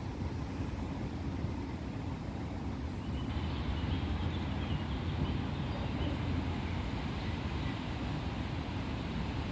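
Steady low outdoor rumble, with faint high chirping joining in about three seconds in.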